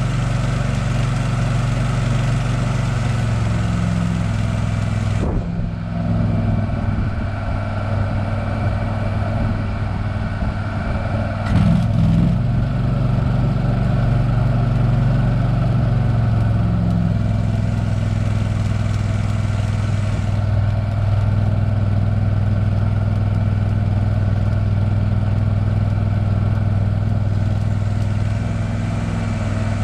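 Case 680B backhoe engine running steadily at idle, with a short sharp click about five seconds in and another about twelve seconds in.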